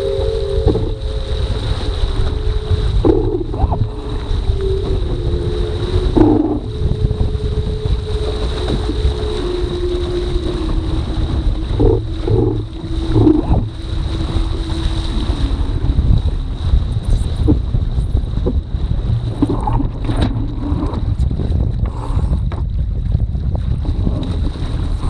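Wind buffeting the microphone and water rushing along the hull of a foiling dinghy, with a thin hum from the hydrofoils that slowly falls in pitch over the first fifteen seconds or so as the boat slows down off the foils. A few short splashes against the hull stand out now and then.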